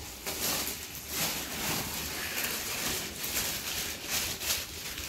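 Clear plastic packaging crinkling and rustling in irregular bursts as plastic-wrapped cricket batting pads are pulled out of a kit bag.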